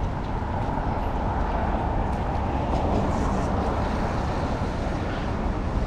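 Street traffic on a rain-wet road: a steady low rumble under a hiss, swelling a little as a vehicle goes by in the first half.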